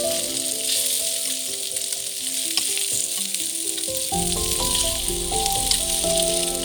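Food frying in a pan, a steady sizzle, under background music with a stepping melody that gains a bass line about four seconds in.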